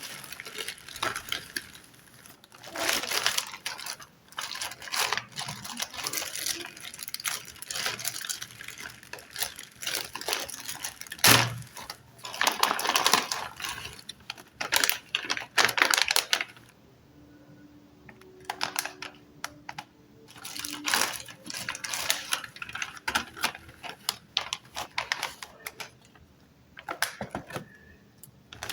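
Packaging of a pack of dental picks being handled and opened by hand: irregular clicks and crinkling rustles, thinning out for a few seconds past the middle.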